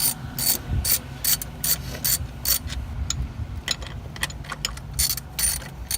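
Hand ratchet wrench with an extension clicking in short strokes, about two to three a second, as it drives the 10 mm bolts of a throttle body spacer. The clicks go fainter in the middle, then a few strong strokes come near the end.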